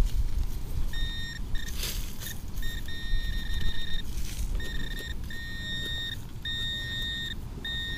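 Minelab Equinox 600 metal detector giving a target signal: repeated beeps of one steady high pitch, some short and some held for nearly a second.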